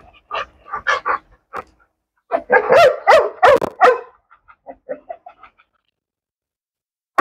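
Dog barking and yelping in short bursts: a scattered few at first, then a quick loud run of barks a little past two seconds in, followed by a few fainter yips.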